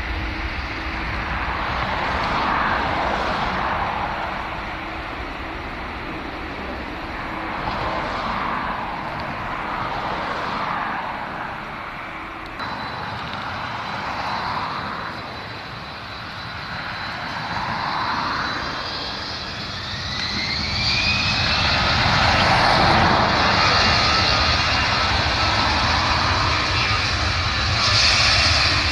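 Jet aircraft noise across an airfield, swelling and fading at first. About two-thirds of the way through, a rising whine and a louder, steady roar follow as a Germanwings Airbus A320's engines spool up toward takeoff thrust on the runway.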